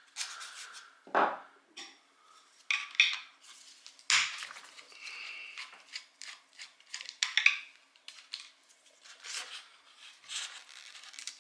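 Hand tools and metal pump parts being handled, with irregular clinks, clicks and scrapes while the power cord is worked out of the air pump's housing.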